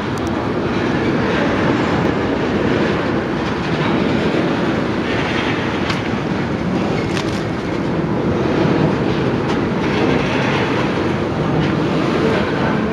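Freight train of tank cars rolling past at trackside: a steady rumble of steel wheels on rail, with a few faint clicks.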